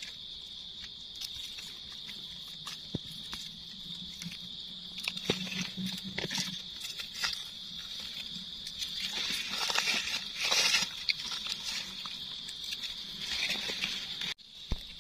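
Dry leaf litter crackling and rustling with small clicks as hands and feet move through it, loudest in a rustle about ten seconds in, over a steady high drone of insects.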